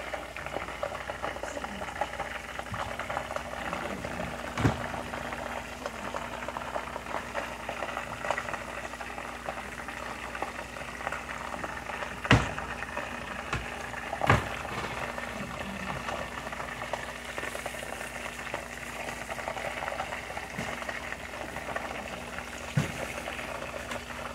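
Battered chicken thighs deep-frying in a pan of hot oil: a steady bubbling crackle, with four sharper pops spread through it.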